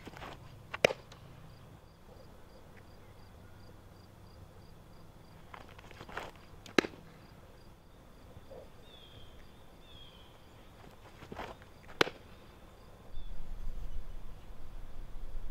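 Three softball pitches smacking into the catcher's glove, each a sharp pop about five and a half seconds apart, with softer sounds just before each catch. Insects buzz faintly and steadily in the background, and a low rumble comes in near the end.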